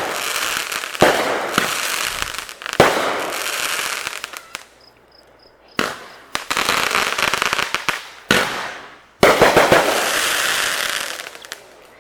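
Fireworks going off: a series of sharp bangs, each followed by a second or more of dense crackling, with a short lull about halfway through.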